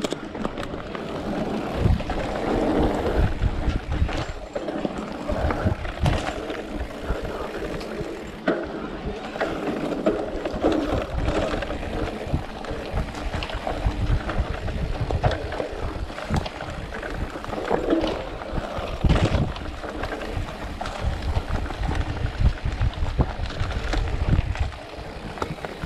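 Trail noise from a Giant Reign E+ electric mountain bike ridden down a dirt and leaf-covered forest trail: tyres rolling over the ground, with frequent knocks and rattles from the bike over bumps, and wind on the microphone.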